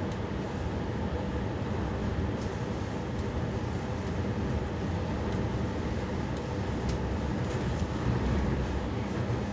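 Steady running noise of a moving 8-car H set electric train, heard from inside the carriage: a low rumble of wheels on rails, with a few faint clicks.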